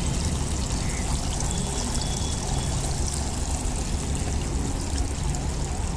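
Water steadily trickling and pouring into a koi pond: a continuous hiss with a low rumble beneath it.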